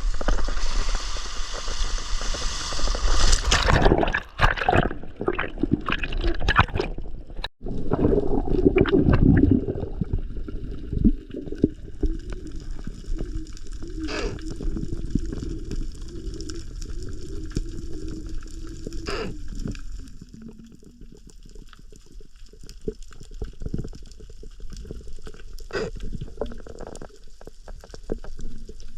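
Heavy splashing of sea water, then a muffled underwater wash with a low wavering hum and scattered sharp clicks.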